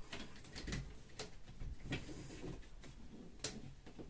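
Handling noise: irregular light clicks and rustling as plastic RO tubing is worked into a push-fit fitting, with clothing brushing against the phone; one sharper click near the end.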